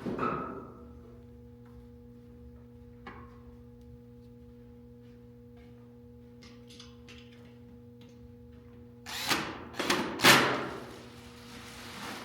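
Cordless drill run in three short bursts about nine seconds in, driving screws into the stand, over a steady low hum with faint clicks of handling.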